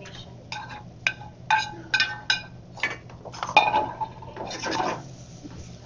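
Stainless steel pans and utensils clinking on a gas range: a quick string of sharp metal clinks with short ringing, the loudest about three and a half seconds in, followed by a brief scraping sound.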